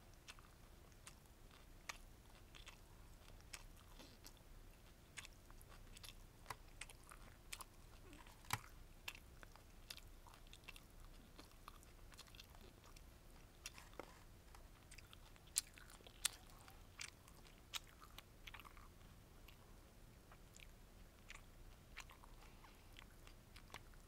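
Close-miked chewing and biting of bulgogi gimbap (rice, seaweed, crunchy vegetables and beef): faint, irregular wet mouth clicks and small crunches, with a few sharper clicks around the middle.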